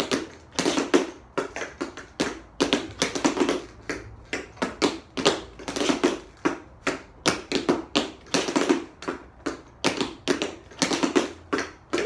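Two pairs of tap shoes striking a hard floor in quick clusters of taps, several a second, with no music, as two dancers step through the same tap routine together.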